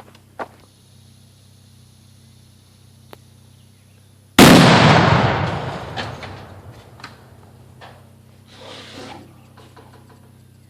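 A Tannerite charge packed in a TV detonating when hit by a rifle shot: one very loud blast about four seconds in, dying away over about two seconds.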